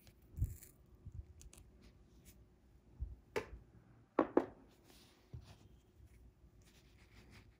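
Side-cutting pliers snipping the tag end of a fishing line at a hook's eye, a sharp snip about half a second in. It is followed by soft knocks and a quick run of sharp clicks from the pliers and hands near the middle.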